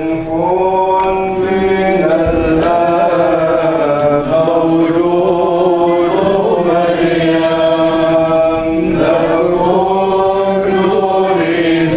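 Church congregation singing a slow, chant-like Arabic liturgical hymn in unison from hymn sheets, the long notes sliding from one to the next over a steady low held note.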